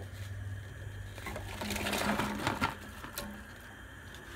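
Chunks of chopped carrot and onion tumbling into an enamelled pot of stock and ham bone: a dense clatter of pieces landing, about a second and a half long, starting about a second in.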